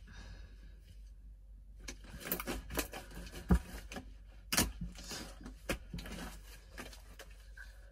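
Jiggly glue-and-borax slime with foam beads being stretched, folded and pressed by hand, giving irregular sharp clicks. The clicks start about two seconds in.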